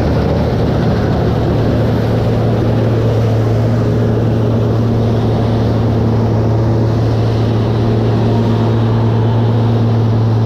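A large farm diesel engine running at a steady, constant speed: a low, even hum with overtones under a haze of mechanical noise.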